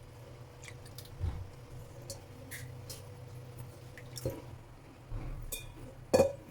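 Thin egg batter for roti jala being worked in a bowl: wet squishing and dripping, with a few light knocks of a utensil against the bowl, the loudest near the end. A low steady hum runs underneath.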